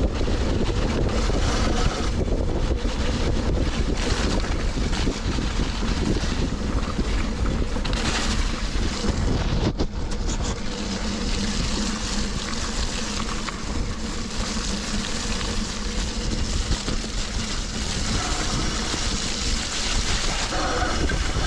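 Wind blasting the action camera's microphone as a mountain bike rides fast over a rough, wet dirt trail, with the bike and tyres rattling over the ground. The sound goes briefly muffled about ten seconds in.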